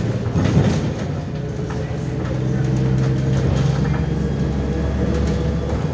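Interior of a moving MAZ-105 articulated city bus: the diesel engine drones steadily under road noise and light rattles. The engine note grows fuller about two seconds in and drops away near the end.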